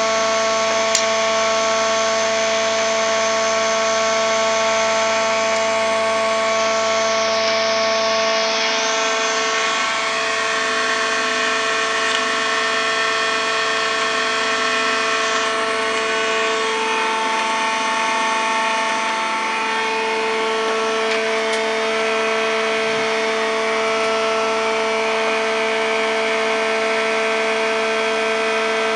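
UTOOL 300 woodworking machine running steadily, its motor and blade giving a continuous whine made of several fixed tones. The tone shifts slightly about eight seconds in and again around sixteen seconds, typical of the blade taking up wood as bottom bars for beehive frames are cut.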